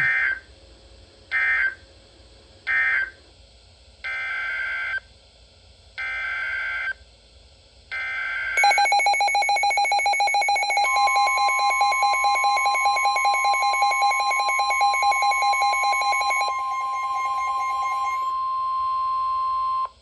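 NOAA Weather Radio data signals through a Midland weather alert radio: three short, harsh digital SAME bursts (the end-of-message code closing the tornado warning), then three longer SAME header bursts announcing the next warning. The radio's own rapidly pulsing alarm follows, and about three seconds later the steady 1050 Hz warning alert tone joins it; the alarm stops about 16 seconds in while the alert tone holds.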